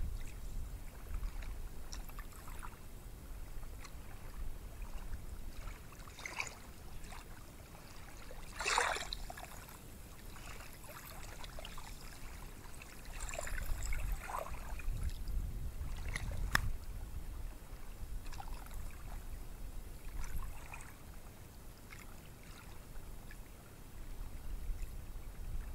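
Small ocean waves breaking and washing up a beach: a low rumble that swells and fades, with scattered splashes, the clearest about nine seconds in.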